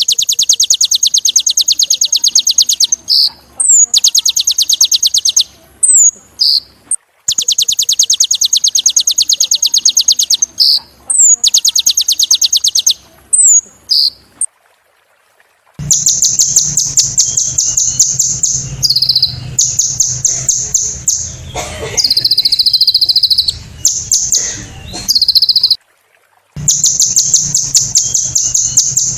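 Kolibri ninja (konin) sunbird singing: long runs of very rapid, high, buzzy trills lasting a few seconds each, broken by short slurred notes. The song twice stops briefly before starting again.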